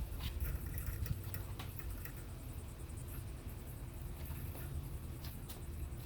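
Quiet background: a steady low rumble with a few faint clicks and taps, and a faint high hiss.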